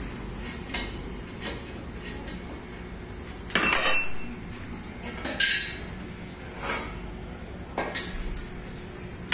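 Wrench and metal fittings clinking as a motorcycle exhaust is being unbolted and fitted: scattered light metal clicks, with a louder ringing clank about three and a half seconds in and a few more clinks later.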